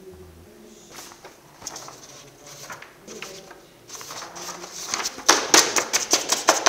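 Paper sheets rustling and crinkling as large printed plans are handled, a dense crackle that grows loudest in the last couple of seconds.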